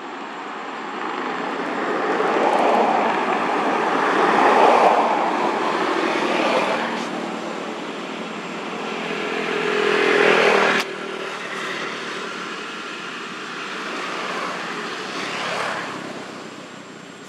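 Motor-vehicle engine noise from passing traffic, swelling and fading twice, with a sudden drop about eleven seconds in and a smaller swell near the end.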